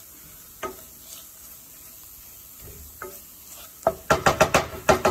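Wooden spoon stirring a thick flour-and-onion roux in a stainless steel pan over faint sizzling. A few single knocks come first, then near the end a quick run of spoon strikes against the pan, about five a second, each with a short metallic ring.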